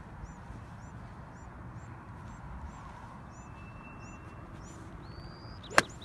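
A bird chirps repeatedly over a steady outdoor background. Near the end comes a single sharp crack as the golf club strikes the ball off the tee.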